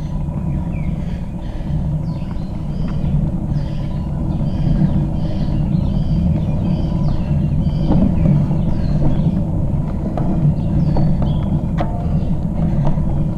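Steady low rumble of wind and tyre noise from a bicycle climbing a paved road, with birds chirping in the roadside trees: many short, falling chirps throughout.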